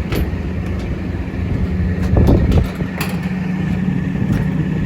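Air conditioning unit running with a steady hum, with a few sharp clicks and knocks from handling equipment and a louder rough burst about two seconds in.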